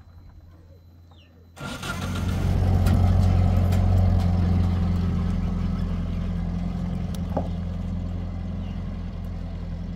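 A vehicle engine comes in suddenly about a second and a half in and then runs steadily at a low, even pitch.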